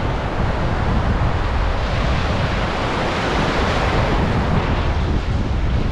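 Shallow sea surf washing in and breaking into foam, swelling to a louder wash around the middle, with wind buffeting the microphone.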